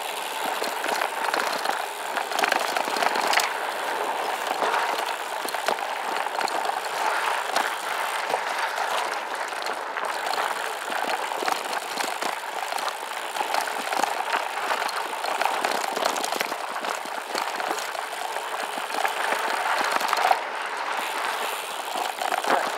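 SCOTT Addict Gravel 10 gravel bike riding over a dirt and gravel fire road: a steady crunching rush of tyres on loose gravel with many small clicks and rattles from stones and the bike.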